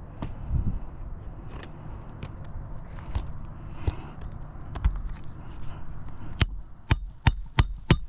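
Scuffs and light taps, as of footsteps on a shingle roof, then near the end five sharp knocks in quick succession, about two to three a second, each with a brief ringing.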